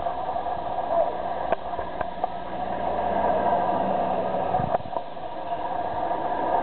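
Steady city street traffic noise, with a few faint clicks.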